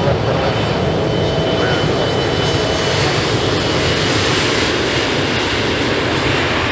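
Embraer E175LR's two CF34 turbofan engines at takeoff thrust as the jet accelerates down the runway past the listener: a loud, steady jet rush with a thin fan whine, brightening in the middle as it goes by.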